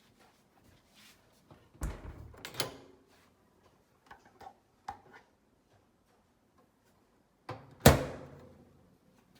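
A few knocks and clunks of something being handled in a small room: a cluster about two seconds in, then one loud clunk near the end that rings out briefly.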